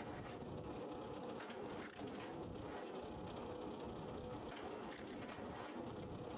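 Firewood splitter machine running steadily: a continuous mechanical drone with a few faint clicks and knocks as logs are handled on its steel table.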